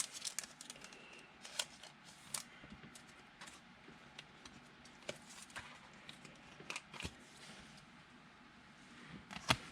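Football trading cards being handled and sorted on a table: faint, irregular clicks and light scrapes of card edges and sleeves, with a few sharper taps.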